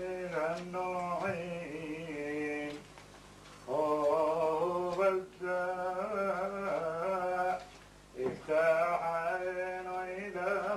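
An elderly man singing an Adeni Jewish hymn in long, winding phrases, with short breaks between phrases about three and eight seconds in.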